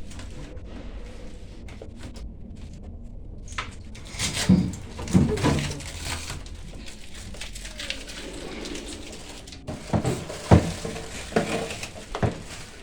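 Scattered knocks and clatter from handling a new fridge's fittings, several sharp taps in two clusters, a few seconds in and again near the end.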